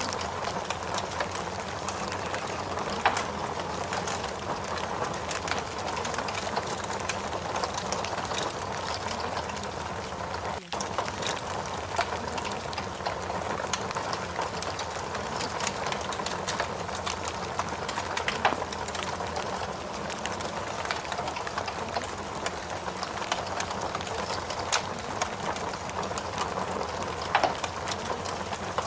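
Forest rain and fire ambience: a steady hiss of rain with frequent small crackles and pops from a burning fire, broken by a brief dropout about ten seconds in.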